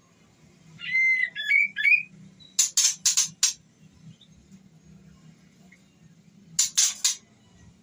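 Female white-rumped shama (murai batu) calling: a short run of clear whistled notes about a second in, then four quick harsh, scratchy notes, and three more near the end. It is the call of a female in breeding condition calling to a male.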